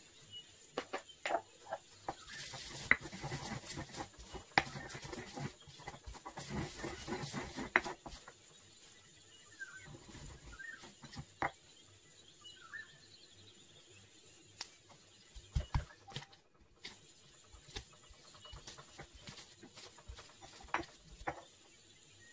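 Stone pestle grinding and knocking herbs and salt in a stone mortar: a dense stretch of grinding and knocks for about the first eight seconds, then scattered single taps. A few short bird chirps in the background.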